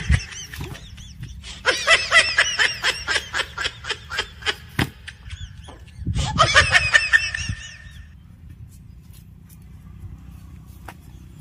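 High-pitched laughter in quick repeated 'ha-ha' pulses. It comes in two runs, one starting about two seconds in and lasting nearly three seconds, and a shorter one around six seconds in, then it falls quiet.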